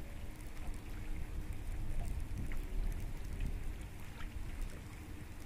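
Wind buffeting the microphone, an uneven low rumble, with faint scattered ticks above it.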